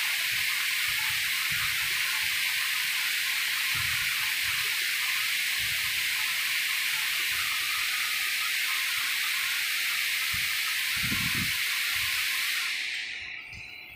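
A steady hiss that dies away about a second before the end, with a few soft low thumps along the way.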